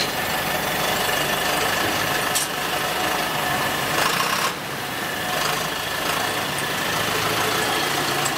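Steady engine-like hum of running machinery, holding several constant tones, with a short tick about two and a half seconds in and a brief drop in level about four and a half seconds in.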